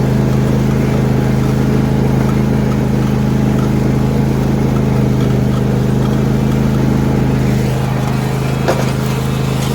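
John Deere D125 lawn tractor's 20-horsepower engine running at a steady speed as the tractor is driven, with one brief click about nine seconds in.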